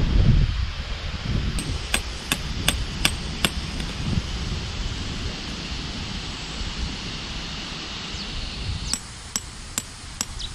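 Tent peg being hammered into gravel ground to anchor an awning guy rope: sharp strikes, a quick run of about five a couple of seconds in and four more near the end. Wind rumbles on the microphone in the first half.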